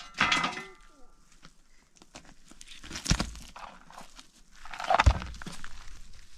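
A large rock being shifted and set down on gravelly ground: scraping and crunching of stone on grit, with two heavy thuds, about three seconds in and about five seconds in, the second the loudest. A brief voice-like call is heard right at the start.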